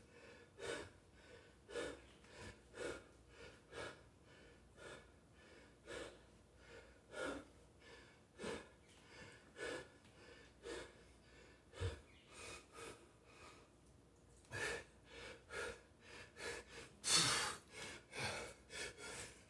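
A man breathing hard and fast after an intense dumbbell set, about one loud breath a second, coming quicker and louder near the end. A soft low thump about twelve seconds in.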